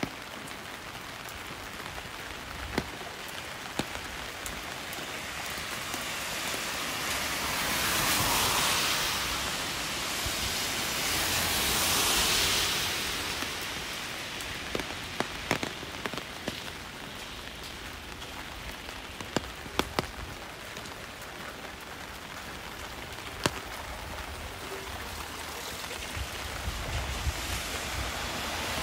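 Steady rain hissing, with scattered sharp ticks of drops landing close by; the hiss swells twice, about eight and twelve seconds in.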